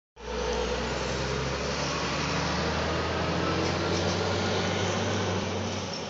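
A vehicle engine idling, a steady low hum with broad noise over it, which drops away near the end.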